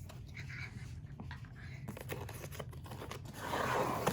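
Packaging being handled during an unboxing: light rustling and crinkling, louder for the last second or so.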